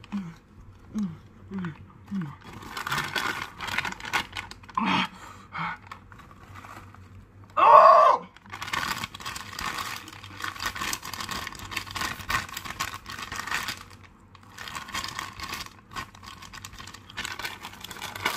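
A Paqui Haunted Ghost Pepper chip bag crinkling as it is handled, shaken and tipped up, in long crackly stretches. A few short falling moans at the start, and one brief loud vocal outburst about eight seconds in.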